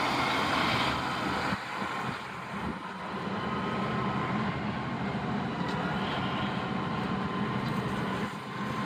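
Prowler side-by-side utility vehicle's engine running steadily as it drives along a rough trail.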